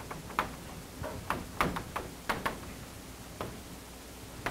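Chalk writing on a chalkboard: about ten sharp, irregular taps with short scratchy strokes as letters are written.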